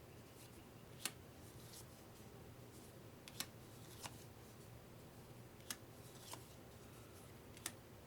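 Playing cards being handled and set down on a table: six short sharp snaps a second or two apart, with faint sliding rustles between them.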